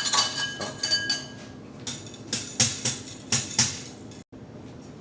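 A kitchen utensil clinking and knocking against metal cookware while mixing, the strikes quick and ringing at first, then sparser after about two seconds.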